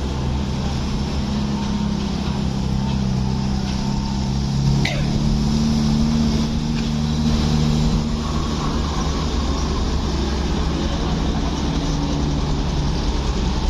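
A heavy road vehicle's engine running steadily close by, swelling a little and rising slightly in pitch in the middle stretch. A brief falling squeal comes about five seconds in.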